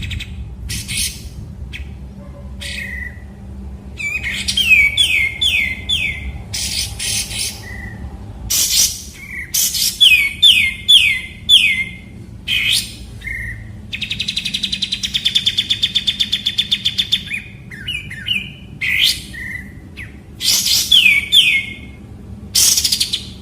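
Kapas tembak bulbul singing: loud, sharp down-slurred whistled notes, often in quick runs of three or four, with a rapid buzzy rattling trill of about three seconds midway.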